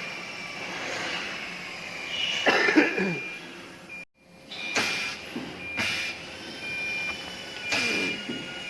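Small CNC lathe running and cutting metal, with a steady high-pitched machine whine. Louder bursts of cutting noise come about two and a half seconds in and again near the end. The sound cuts out abruptly for a moment about four seconds in, then resumes.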